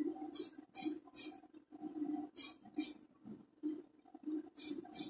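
Spray paint hissing in short bursts of about a quarter second, two or three at a time with pauses between, over a low fluctuating hum.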